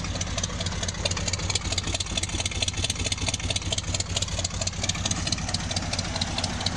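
Carbureted Ford 302 V8 in a 1972 Ford F100 idling steadily, running smooth.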